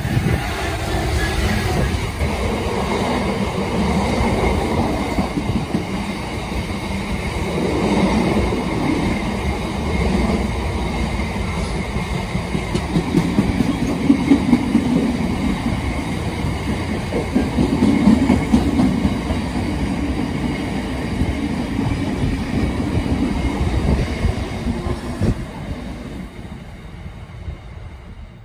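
A Class 66 diesel freight locomotive with its EMD two-stroke engine passes close by, followed by a long train of box wagons rolling past with a steady rumble and clickety-clack of wheels on the rails. The sound fades as the train moves away near the end.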